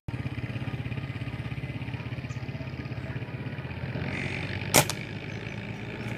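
A nearby engine running steadily with a fast, even chugging pulse of about a dozen beats a second, cutting in suddenly at the start. About three-quarters of the way through comes a single sharp crack, the loudest sound.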